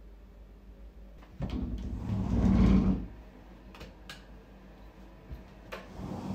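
A bathroom door being handled. A scraping rumble lasts about a second and a half, then several sharp clicks and a knock come from the door and its latch.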